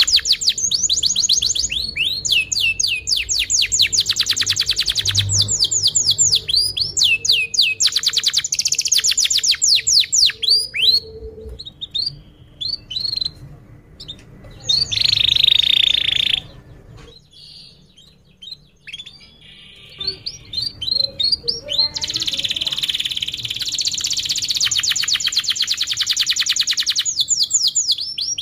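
Canary singing a long song of rapid trills and chirping rolls. It breaks off for a few seconds past the middle, then comes back with another long, fast trill.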